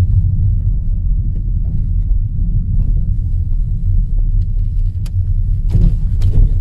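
Car driving, heard from inside the cabin: a steady, low rumble of engine and tyres on the road. A few sharp clicks and knocks come near the end.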